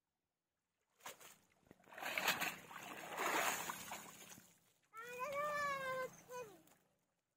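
Pond water splashing and streaming off a wet fishing net as it is hauled out of the shallows onto the bank. About five seconds in comes a short, high, wavering call, then a brief falling one.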